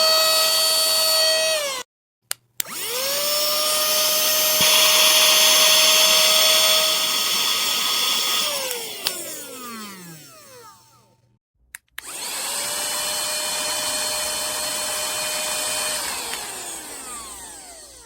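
Small high-speed electric motor of a handheld keyboard vacuum and air duster, running with a steady high-pitched whine. It switches off, spins up again with a quick rise in pitch, and runs with a louder airy rush for a few seconds. After switching off it winds down with falling pitch, then starts and winds down once more near the end.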